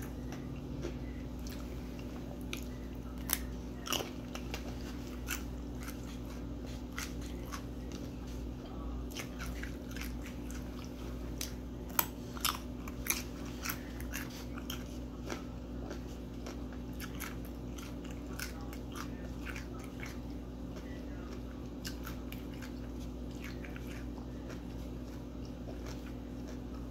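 Close-up chewing and crunching of raw carrots, with irregular crisp bites that are loudest about a third and halfway in. A steady low hum runs underneath.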